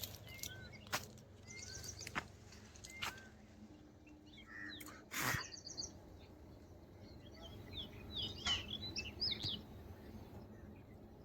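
Small birds chirping: scattered short calls and high trills, with a quick run of sharp, falling notes about eight to nine seconds in. A loud, sharp sound stands out about five seconds in.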